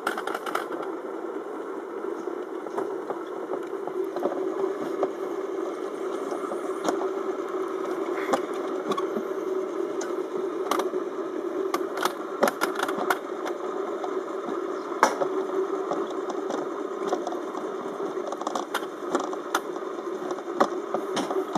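Summer toboggan sled running down a stainless-steel trough track: a steady rumble with scattered sharp clicks and knocks.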